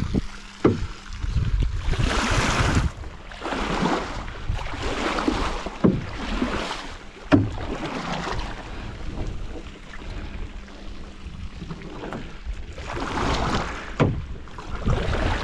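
Water splashing and sloshing against a small boat in a farm dam, in irregular surges about a second long, with a couple of sharp knocks and low wind rumble on the microphone.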